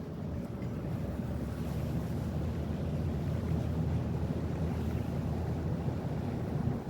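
Steady low rumble of a vehicle driving along, with road and wind noise.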